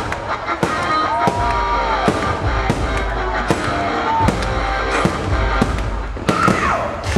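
Fireworks shells bursting in quick succession, many sharp bangs, over loud accompanying show music.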